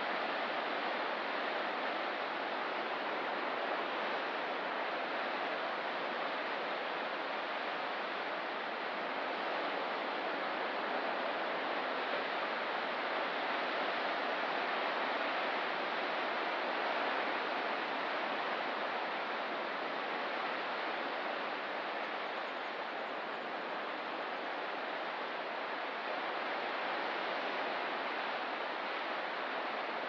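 Ocean surf washing on a rocky shore: a steady, even rush of waves with only slight swells and no distinct breakers.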